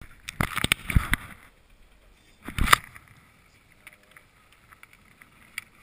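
Clattering knocks and rubbing from ski poles and gloved hands handled close to the microphone: a quick run of knocks about a second in, a second short burst near three seconds, and one faint click near the end.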